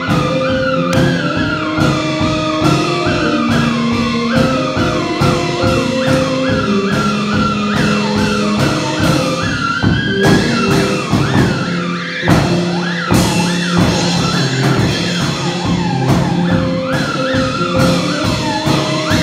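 Live garage-rock instrumental: a theremin repeats a swooping, wavering figure over held electronic keyboard notes and a steady drum-kit beat.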